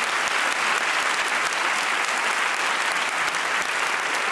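Large theatre audience applauding a punchline, a dense, steady clatter of many hands clapping.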